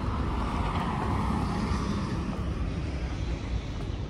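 Steady rumble and hiss of passing vehicle traffic, loudest in the first two seconds and then easing slightly.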